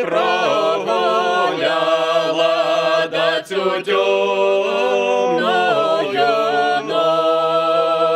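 Small group of voices singing a folk song a cappella in harmony, over a steady low held note. About seven seconds in they settle on a long sustained chord.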